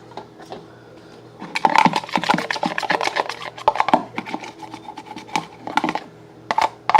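Slime mixture being stirred and worked in a bowl: a dense run of quick, irregular clicks, scrapes and squelches that starts about a second and a half in and pauses briefly near the end.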